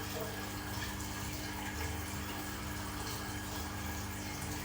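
Steady background noise: an even hiss with a constant low hum underneath, unchanging throughout.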